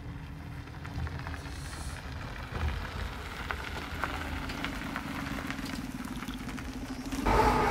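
A train hauled by an ED75 AC electric locomotive running along the track: a steady hum that rises slightly in pitch, with scattered clicks from the wheels on the rails. It grows louder, then turns suddenly loud near the end as the train reaches the microphone.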